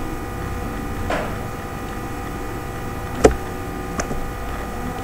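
A few sharp computer mouse clicks, the loudest about three seconds in, over a steady electrical hum.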